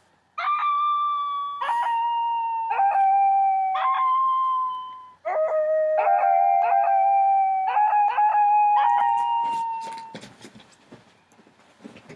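Notes from a dog piano app, about eleven held tones at changing pitches, each starting sharply and some overlapping, with a short break about five seconds in. A few scattered clicks follow near the end.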